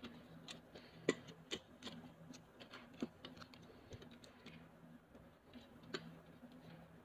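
Light, irregular clicks and taps as a power supply's circuit board and wires are handled and fitted back into its sheet-metal case, the sharpest about a second in, around three seconds in and near six seconds. A faint steady low hum sits underneath.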